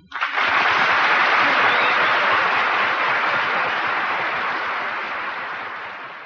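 Audience applauding, a dense clapping that fades out toward the end.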